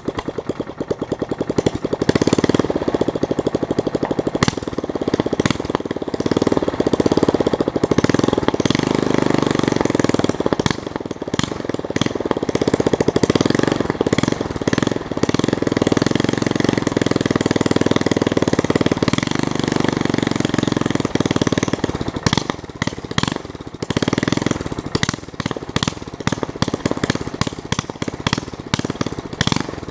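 Small lawn mower engine running loud with no muffler, a rapid firing rattle throughout; it turns ragged and uneven in the last third.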